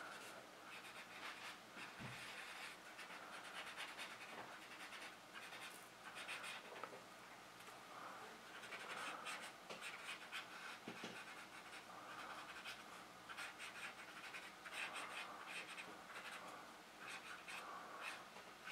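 Fine-tip drawing pen scratching faintly on paper in short, irregular strokes.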